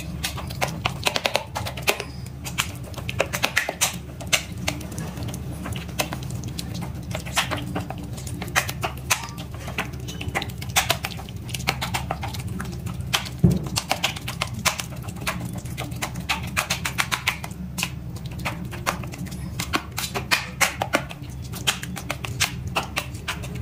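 Metal spoon clicking and scraping against a steel plate in quick, irregular taps as roasted eggplant is mashed, over a steady low hum.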